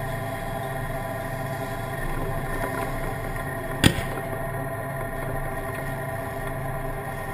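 Tank engine running steadily, heard close from a camera mounted on the tank's hull. About four seconds in, one sharp crack cuts across it.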